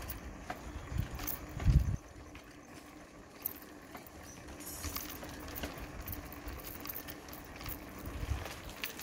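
Bicycle being ridden: a low rumble with scattered small clicks and rattles from the bike, and one loud low thump a little under two seconds in.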